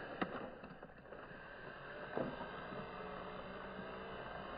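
Small electric motors and plastic gearboxes of an RC toy excavator whirring steadily as the arm swings and the tracks move, with a short knock about a fifth of a second in and another about two seconds in.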